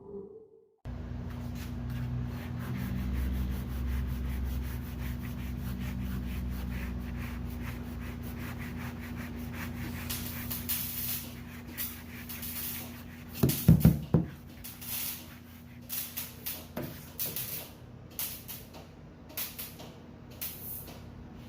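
Shop work on car sheet metal: a steady machine hum, then short rubbing or sanding strokes in quick succession, with a loud clatter of knocks about two thirds of the way through.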